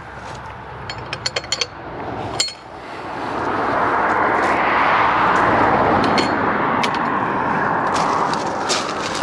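A few sharp crunches of footsteps on gravel, then a broad rushing noise swells up about three seconds in and holds for several seconds, louder than the steps.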